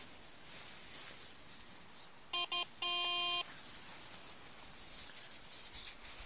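Garrett ACE 250 metal detector giving its target signal over a dug hole: two short beeps and then a longer half-second tone, marking metal in the sand. Faint scraping and rubbing of sand around it.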